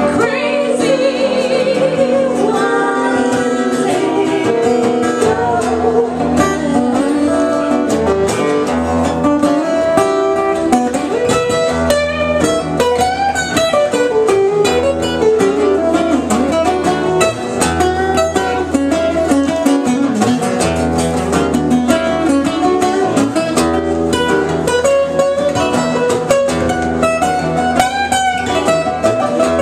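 Live acoustic music: two acoustic guitars strummed together, with singing over them.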